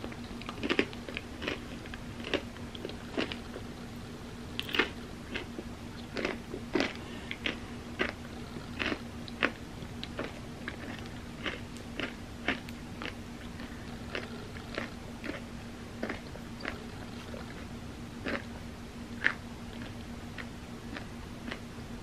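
Close-miked biting and chewing of crisp ice cream cone pieces with ice cream: irregular sharp crunches, often several a second, over a steady low hum.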